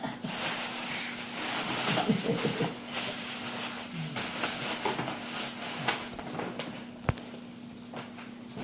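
Crinkly rustling and crackling of gift wrapping or tissue paper being handled, with a single sharp click about seven seconds in.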